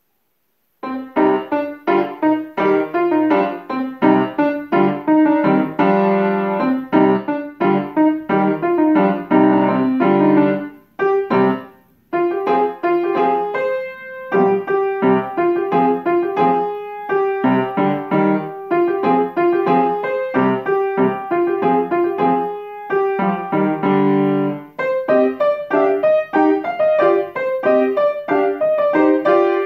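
Grand piano played solo: after a moment of silence a piece begins about a second in, with quick runs of notes and chords, and a short break around eleven seconds in.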